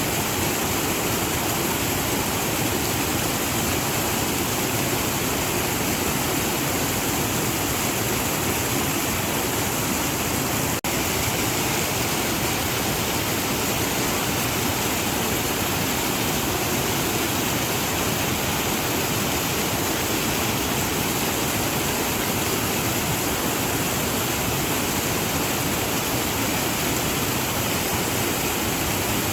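Waterfall rushing in a steady, unbroken roar of falling water, with a momentary dip in level about eleven seconds in.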